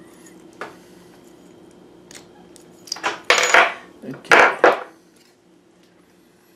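Metal parts of a Reese Towpower hitch lock and its key clicking and clinking as they are handled and set down on a table: one click early, then a couple of seconds of clattering about three seconds in.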